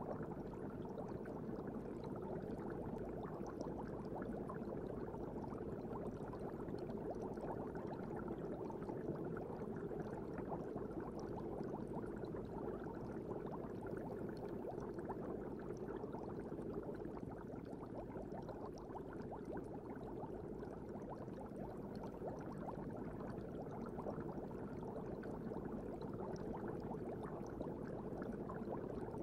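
Aquarium ambience: a steady, dull bubbling and churning of water in a fish tank, with fine crackling bubble pops and no music.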